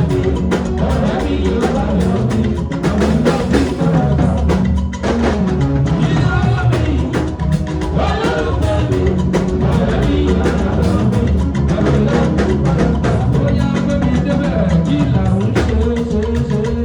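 Loud song with singing over a steady drum beat, playing without a break.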